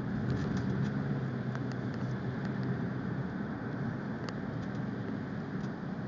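Car driving on a wet, slushy road, heard from inside the cabin: steady engine and tyre noise, with a low hum that fades about halfway through and scattered faint ticks.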